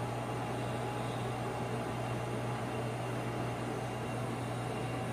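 Steady low hum with an even hiss underneath, unchanging throughout, like a fan or air-handling unit running.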